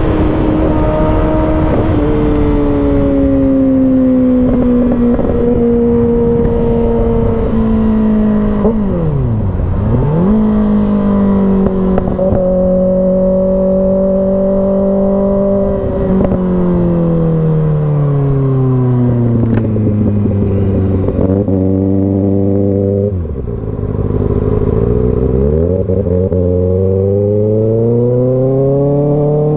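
2024 Kawasaki ZX-6R's inline-four engine and exhaust under way at highway speed, its pitch sagging and rising with the throttle. The revs dip sharply and come back up about nine seconds in and again about twenty-three seconds in, then climb steadily near the end as it accelerates.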